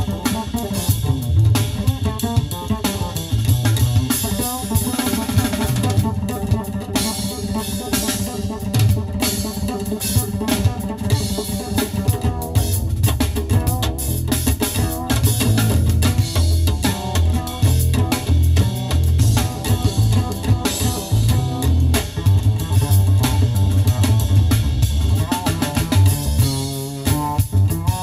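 Jazz-fusion track with drum kit and bass guitar playing through a custom car audio system with component front speakers and 8-inch midbass woofers. The bass is strong throughout and drops out briefly about a second before the end.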